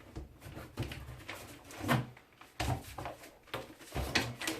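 Irregular knocks and clicks of hand tools and plastic being worked at a strimmer's sealed moulded mains plug, about seven separate hits.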